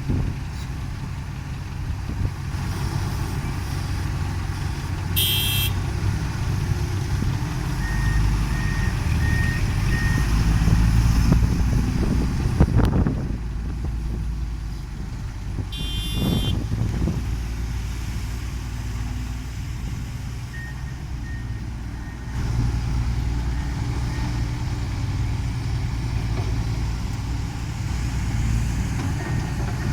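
Tracked excavator's diesel engine working under load, its rumble rising and falling, with two short runs of warning beeps and a couple of brief high squeals.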